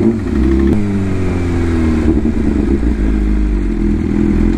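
BMW S1000RR inline-four running under way with its dB killer taken out. About a second in the engine note changes, then the revs fall slowly.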